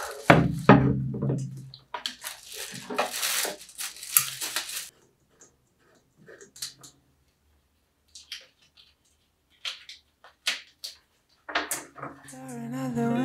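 Plastic packaging crinkling and rustling as a ceramic table lamp base is pulled out of its wrapping, followed by a few light clicks and taps as the lamp is fitted together and set down on a tabletop. Soft music comes in near the end.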